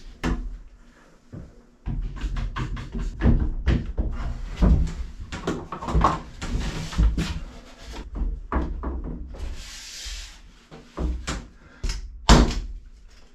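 Irregular wooden knocks and bumps as a piece of mahogany plywood is worked into place against the bulkhead and clamped. A short scraping rub comes about ten seconds in, and a sharper knock near the end.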